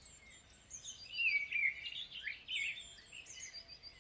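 Small birds chirping and tweeting: short high whistled notes that glide up and down, thickest about a second in, then scattered chirps.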